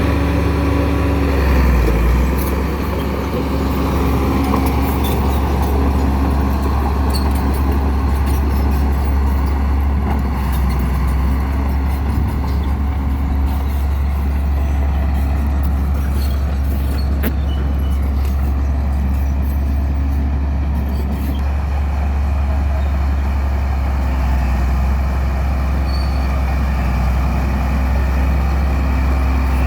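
A heavy vehicle engine running steadily with a low, continuous drone.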